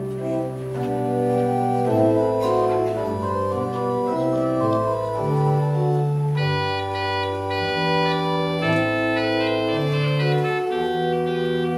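Church organ playing slow, sustained chords that change step by step, with a brighter upper line joining about six and a half seconds in.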